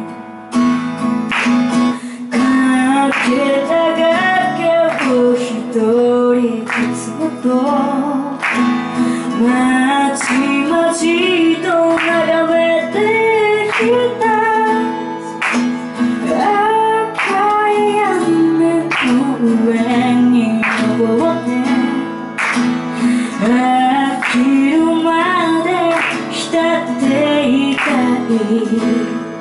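A woman singing a song while strumming an acoustic guitar, the strums coming at a regular pulse under her voice.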